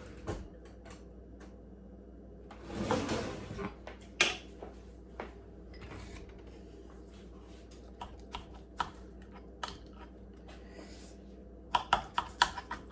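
Baked flaky pastry crust of a galette crackling as it is cut and broken: scattered crisp clicks, a short crunchy rustle about three seconds in, and a quick run of clicks near the end.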